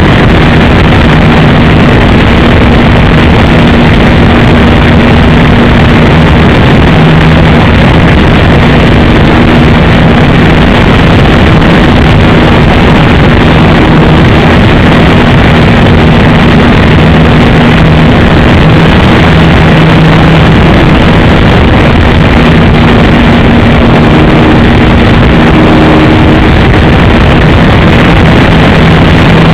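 Radio-controlled Piper J-3 Cub model plane in flight, its motor a steady low drone that wavers slightly in pitch. It sits under a constant loud hiss of overloaded, distorted audio.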